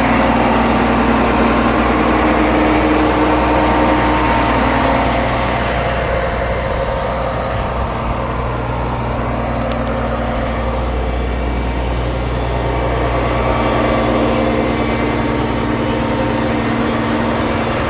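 Cummins 5.9-litre inline-six diesel engine of an asphalt paver idling steadily; it gets a little quieter about five seconds in and louder again later on.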